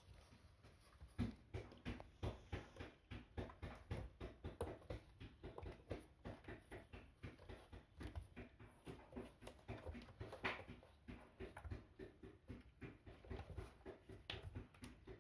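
Five-week-old kittens scampering and pouncing on a corrugated cardboard scratcher and foam puzzle mats: a fast, uneven run of soft paw thumps and scrabbling that starts about a second in.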